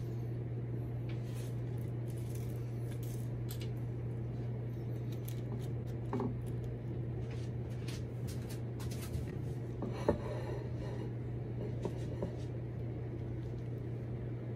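Quiet room tone: a steady low hum with a few faint clicks, and a light knock about ten seconds in.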